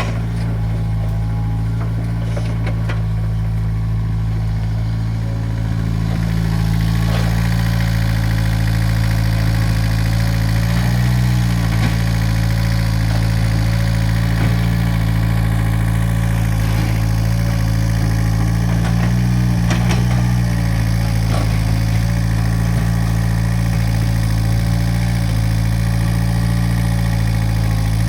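Excavator's diesel engine running steadily under work, its note shifting briefly about 11 and 19 seconds in.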